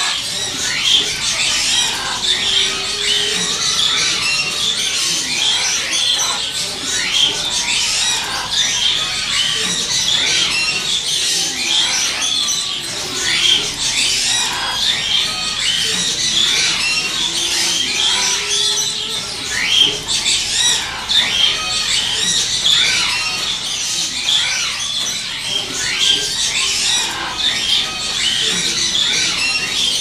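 Many parrots in aviaries chattering and squawking together: a continuous, dense din of short high chirps and squawks.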